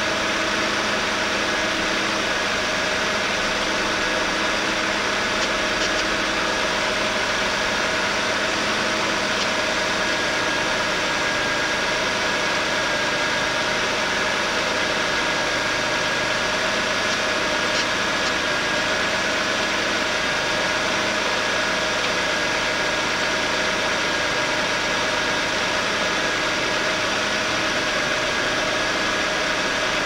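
1998 Ford Taurus 3.0 L 24-valve V6 idling steadily, with a steady buzz over the engine sound. The owner hears this buzz only while the engine is cold and cannot tell where it comes from.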